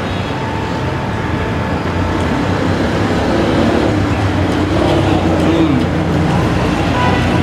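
Steady road traffic noise, a haze of passing vehicles with a low engine rumble underneath.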